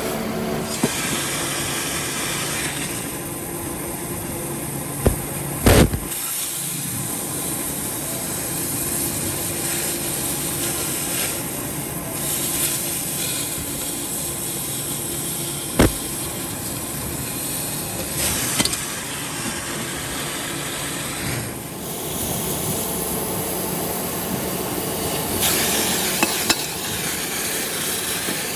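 Steady workshop clatter and hiss while an old compressor is dismantled for scrap, with a few sharp metal knocks: two close together about five seconds in and single ones later.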